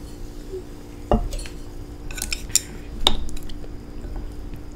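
Eating utensil clinking against a noodle bowl: a handful of sharp clinks from about a second in.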